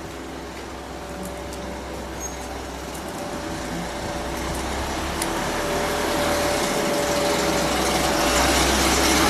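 Honda CB550's air-cooled inline four-cylinder engine running at a steady speed, growing steadily louder.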